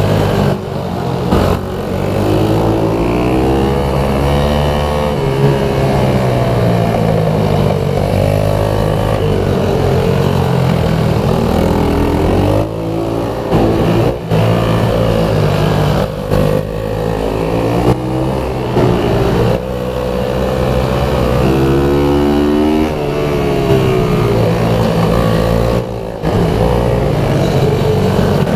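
Pitbike engine ridden hard, its revs climbing and falling over and over as it accelerates and slows, with several brief sharp breaks in the sound.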